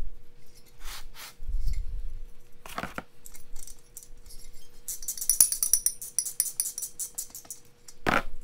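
Engine parts and small metal hardware being handled on a workbench: a few separate knocks and thuds, then about two and a half seconds of light metallic jingling and clinking, and one more knock near the end.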